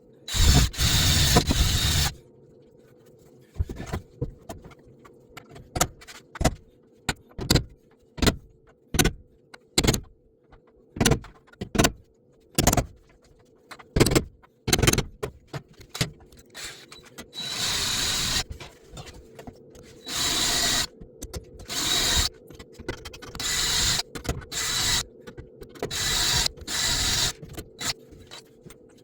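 Electric drill with a spot weld cutter, run in repeated bursts of about a second each with a high squeal as the cutter bites into sheet steel, drilling out the spot welds on a floor pan. In the first half come short sharp clicks and knocks, about one a second.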